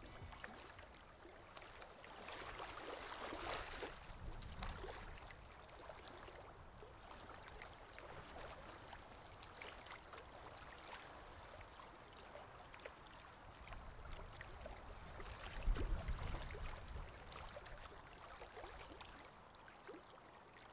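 Faint lapping and trickling of swimming-pool water with small scattered splashes. A brief low rumble comes about fifteen seconds in.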